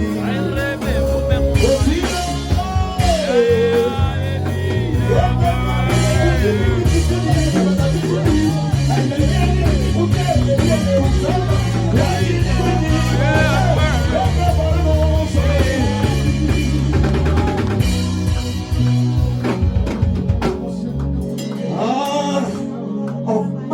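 Live gospel band music, drum kit and bass guitar with a voice singing freely over it. The bass drops out near the end.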